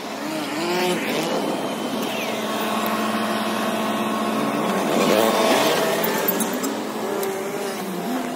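Sped-up street traffic: car engines passing close at an intersection, many pitches gliding up and down over tyre noise. The loudest pass comes about five seconds in.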